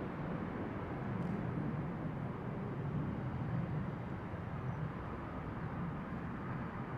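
Steady, dull rumble of a Boeing 747-200 VC-25A's four turbofan engines as it touches down and rolls out on the runway, swelling slightly about three seconds in.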